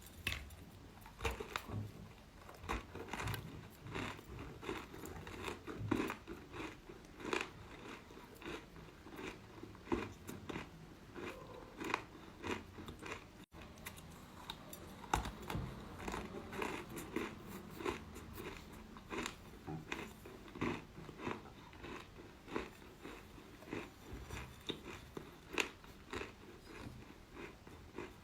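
Close-up chewing of eating chalk: a steady run of short, crisp crunches, a few each second, as the chalk is bitten and chewed.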